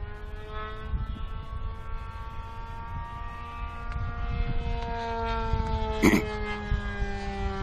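Great Planes Revolver RC model airplane's O.S. Max .75 glow engine running steadily in flight, a high whine whose pitch rises slightly and then slowly falls as the plane passes. A single sharp knock comes about six seconds in, over low wind rumble on the microphone.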